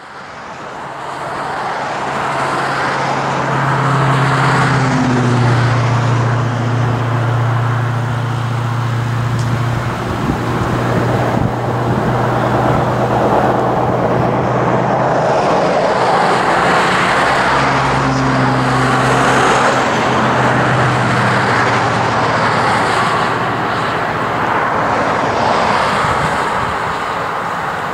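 Road traffic passing on a highway, a steady rush that swells and fades with each vehicle, with a low engine hum that drops in pitch about five seconds in and returns near the end. A small steam locomotive pulling a coach draws near at the same time.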